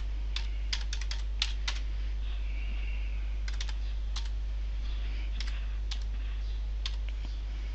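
Typing on a computer keyboard: irregular key clicks in quick clusters, most of them in the first two seconds, then a few scattered keystrokes, over a steady low hum.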